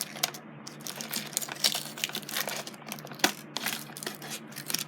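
Toy packaging being handled and unpacked by hand: irregular crackling and clicking of packing material, with one sharper click a little past three seconds in.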